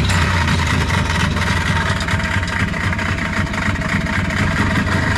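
Old Arctic Cat Jag snowmobile's two-stroke engine catching suddenly and then running steadily on a fresh set of spark plugs, without starting fluid. Before the plug change it had been running rough on fouled plugs.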